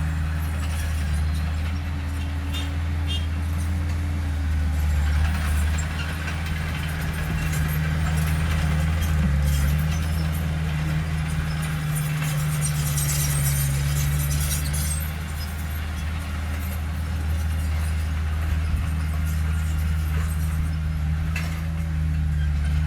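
Heavy diesel engine of earthmoving machinery running steadily, its low drone rising and falling a little, with scattered clanks and a brief hiss about twelve seconds in.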